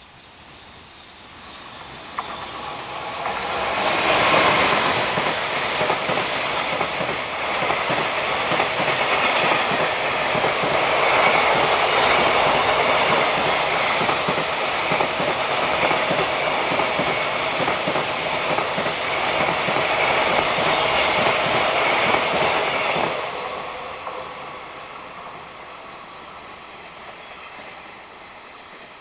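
JR Freight EF210 electric locomotive and its long train of container flat wagons passing close by, moving from right to left. It grows louder on the approach and is loudest as the locomotive passes about four seconds in. Then comes a steady wheel-on-rail rumble with clickety-clack from the wagons, which dies away after the last wagon passes about twenty-three seconds in.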